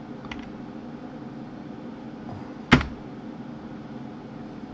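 Computer keyboard clicks over a steady low hum: a faint click near the start and one sharp, much louder click a little before the three-second mark.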